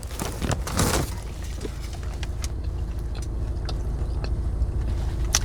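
Steady low rumble of a vehicle, like a car idling heard from inside the cabin, with a few small clicks and rustles.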